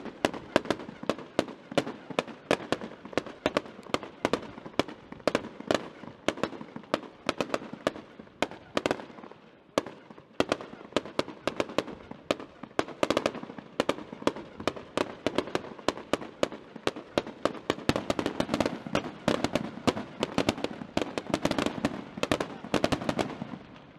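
Fireworks finale: a dense, rapid barrage of bangs and crackles, many reports a second, easing briefly about ten seconds in before building again.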